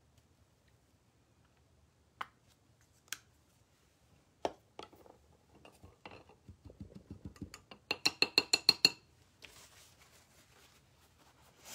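A few sharp clicks, then a paintbrush swished in a glass rinse jar: a quick run of clinks, about eight a second, turning bright and ringing as the brush knocks the glass. A soft paper-towel rustle follows as the brush is blotted.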